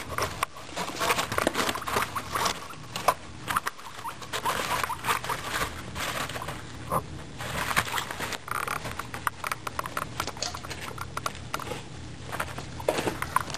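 Guinea pigs gnawing and crunching a raw carrot: quick, irregular crunches and clicks.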